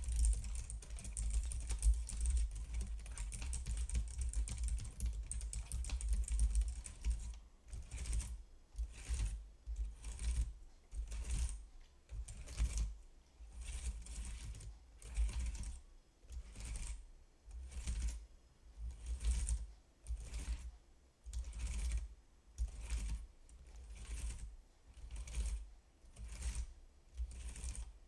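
Computer keyboard being typed on: about seven seconds of fast, continuous key clicking, then slower, separate keystrokes at roughly one or two a second.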